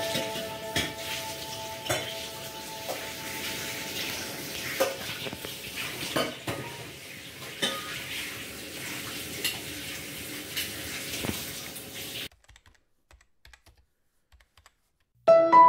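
Wet, dark jamun fruits being handled in a metal bowl, knocking against each other and the bowl in scattered clicks and taps. The handling stops about twelve seconds in; just before the end a plucked-string melody starts.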